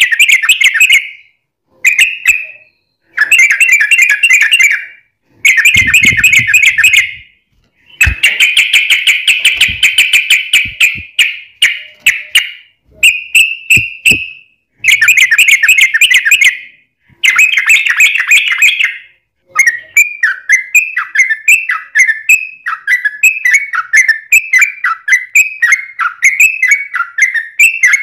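Yellow-vented bulbul (trucukan) song: loud bursts of rapid chattering notes, each a second or two long with short gaps between them. About two-thirds of the way in it changes to a run of short downward-sliding notes repeated about twice a second.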